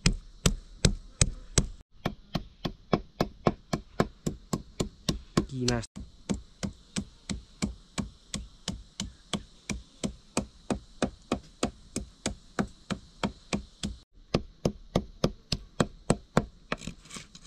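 Knife chopping on a cutting board in a steady rhythm, about three strokes a second, with a few brief breaks.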